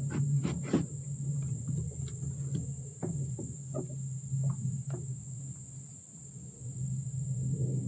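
Scattered light clicks and knocks of fishing line being wound onto a handheld handline spool in an aluminium boat, three in quick succession at the start and a few more near the middle. Under them run a steady high insect drone and a steady low hum.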